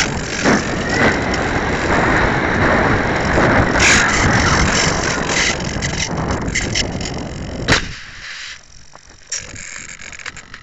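Air rushing and buffeting over a keychain camera mounted on a discus-launch RC glider in low flight, with rattling and knocks from the airframe. About three-quarters of the way in there is a sharp knock, and the rush drops to a much quieter stretch of small clicks and handling noises as the model comes to rest.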